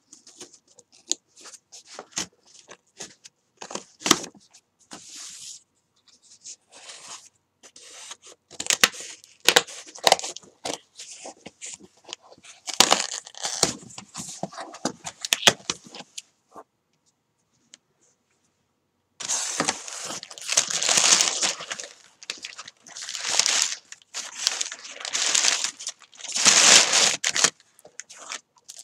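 Scissors snipping and slicing through packing tape on a cardboard box, with sharp metal clicks, tape tearing and cardboard scraping. After a brief pause past the middle come longer bursts of tearing and rustling as the box is pulled open.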